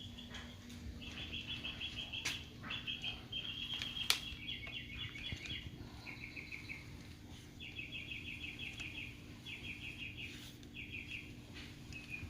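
Rapid, high chirping trills repeated in short bursts of about eight to ten quick pulses, with a few sharp clicks in between.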